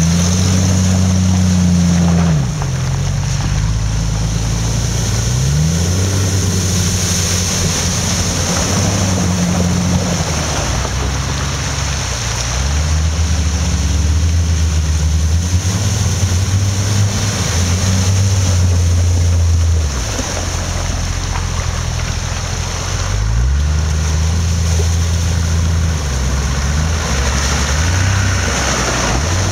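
Off-road 4x4 engine revving up and down again and again, as if working through difficult ground, with a steady rushing noise of wind or splashing over it.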